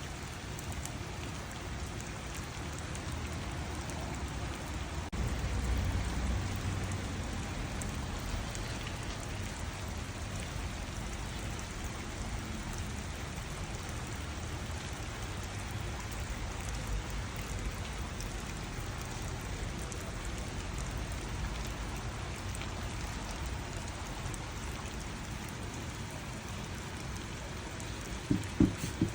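Steady rain falling on a garden, with scattered drops ticking; a few short low thumps near the end.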